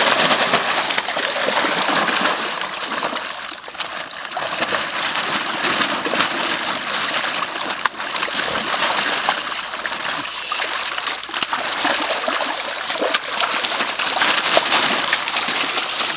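Continuous water splashing, made of many small, quick splashes, from koi thrashing in the water as they are netted out of the pond.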